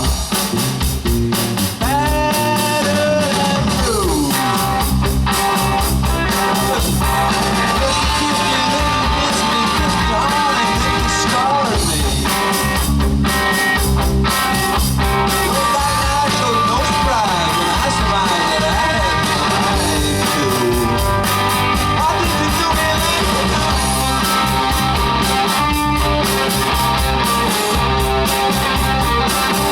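Live rock and roll band playing, with guitar and a singing voice over a steady, loud mix.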